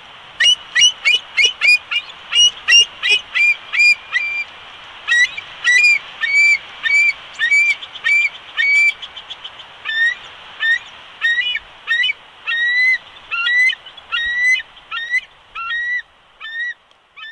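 Bald eagle calling: a long series of short, high piping notes, quick at first and then more spaced out, over a steady hiss.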